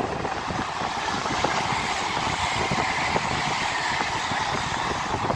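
LNER Azuma high-speed train passing at speed, a steady rush of wheels on rail and air.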